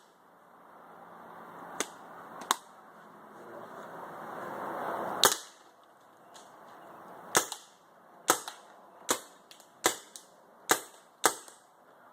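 Paintball gun firing a series of sharp shots: a few spaced seconds apart, then about one a second near the end.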